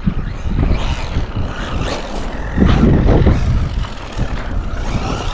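Traxxas Maxx V2 electric RC monster truck driving on 4S: brushless motor and drivetrain whine with a lot of gear noise, under heavy wind on the microphone. It gets louder for about a second near the middle.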